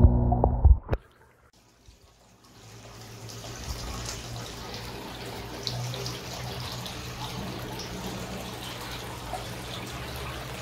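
Aquarium water running and trickling steadily, from the tank's filter return, with a low steady hum underneath. A tonal ambient sound ends with a click in the first second, and the water sound fades in about two seconds later.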